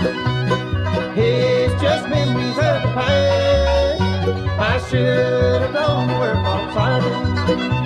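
Bluegrass band playing an instrumental passage: rolling five-string banjo over acoustic guitar and a walking bass line, with mandolin.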